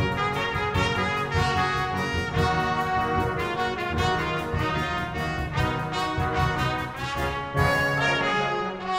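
Wind band music: brass instruments playing a lively piece over a steady beat, with a crash near the end.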